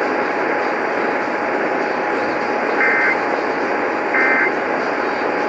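Radio receiver hiss with a faint steady whistle, broken in the second half by short buzzy data bursts about 1.3 seconds apart, two of them and a third starting at the end: the Emergency Alert System's end-of-message code, which closes the test message.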